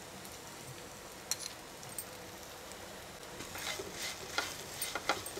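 Light sizzling of drumstick pieces and small onions frying in a nonstick pan with spice masala. From about halfway in, a silicone spatula stirs and scrapes them around the pan, with a few light clicks.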